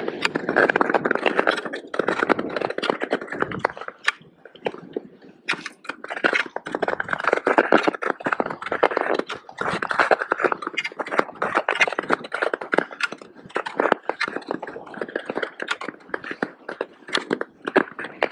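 Ice skate blades scraping and chattering over rough, bumpy natural lake ice, stride after stride, a continuous rasp broken by many clicks and knocks that swells and fades unevenly.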